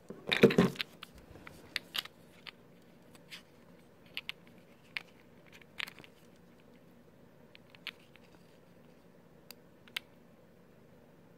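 Fingers handling and prying at the plastic mounting plate of a Blink outdoor camera, working at the small plastic cover beside the mount socket. A loud burst of plastic rattling and clicking comes about half a second in, then about a dozen sparse small clicks and ticks.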